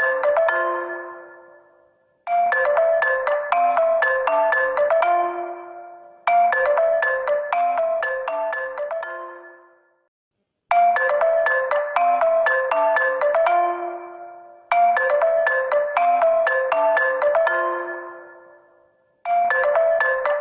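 HONOR smartphone ringtone: a short, quick melody that starts over about every four seconds, each time fading away before the next repeat.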